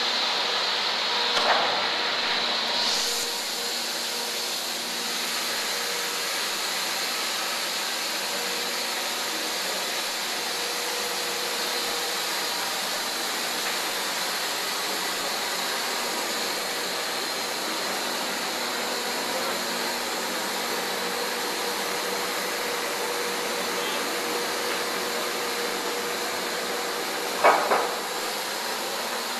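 Steady whirring run of a 400-ton Minster mechanical press, with a faint steady hum tone throughout and no stroking rhythm. A high whine stops about three seconds in, and a pair of sharp knocks sounds near the end.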